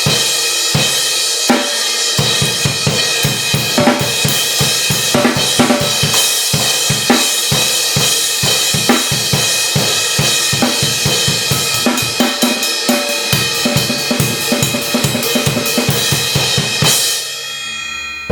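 Drum kit played in a fast groove, with a Zildjian 18-inch A crash ride cymbal ringing in a continuous wash over kick and snare strikes. The playing stops near the end and the cymbal rings down.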